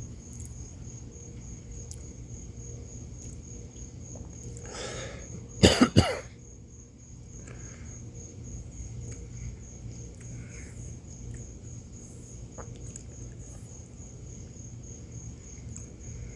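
A person coughs in a quick cluster a little over five seconds in, after a short intake of breath. Behind it, insects, likely crickets, chirp steadily in a high, even pulse.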